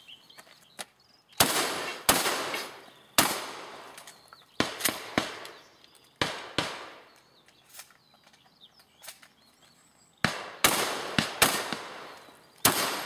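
A shotgun fired about a dozen times in quick groups, each shot ringing out briefly, with a pause of a few seconds in the middle.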